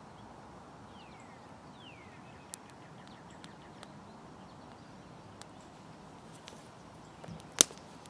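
A small kindling fire of wood shavings and split sticks catching, with scattered faint crackles and one sharp click near the end, the loudest sound. A bird gives two short falling calls about a second in.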